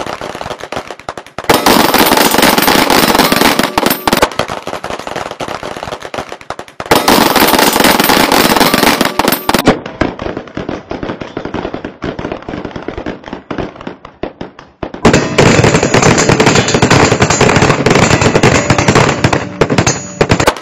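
Several handguns firing at once in rapid, overlapping shots as a line of shooters empties their magazines, a continuous crackle of gunfire. It swells louder three times, for a few seconds each.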